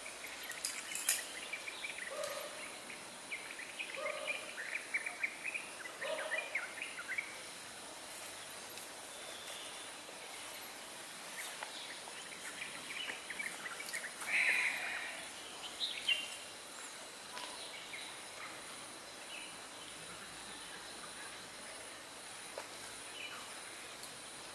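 Forest ambience: birds chirping and twittering, with a few short lower calls in the first six seconds, over a steady high-pitched insect drone.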